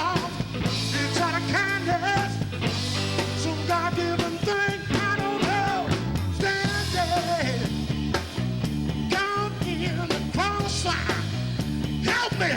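Rock band music: a melodic lead line bending in pitch over steady bass and a drum beat.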